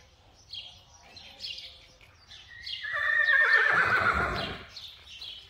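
A horse whinnies once, loudly: one long call of about two seconds that starts high and falls in pitch, beginning about halfway in. Birds chirp in the background.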